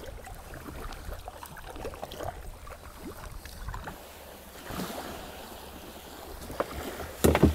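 Sea kayak landing on a sandy beach: small knocks and scrapes of the hull and paddle against sand and water, with one louder bump near the end.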